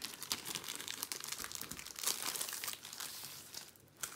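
Clear plastic packaging bag crinkling and rustling in irregular crackles as a rolled canvas is slid out of it and handled. It goes almost quiet shortly before the end, then gives one short click.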